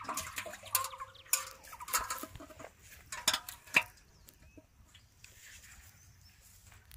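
A hooked catfish thrashing in the water of an aluminium pot: a quick run of splashes and knocks against the metal over the first four seconds, the loudest near the end of that run, then only faint sounds.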